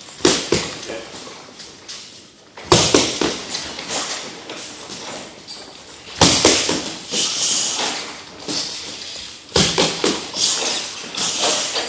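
Boxing gloves striking focus mitts and a strike shield in fast combinations: sharp slaps in clusters every few seconds.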